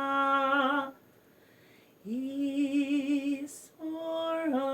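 A woman singing long, held vowel notes unaccompanied. One note ends about a second in, and after a second's pause she slides up into a held note with a wavering vibrato, then starts another held note near the end.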